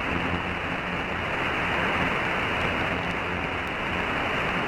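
Steady static hiss from a CB radio receiver on an open channel, limited to the radio's narrow voice bandwidth, with a faint low hum underneath.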